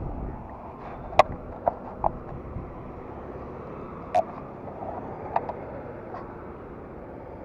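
Steady running noise from a KTM RC390 motorcycle's single-cylinder engine, broken by five short sharp knocks, three of them between one and two seconds in, then two more around four and five seconds.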